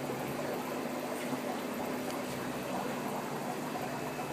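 Steady bubbling and splashing of aeration air lines churning the water in plastic tubs of a betta fish setup, over a faint steady low hum.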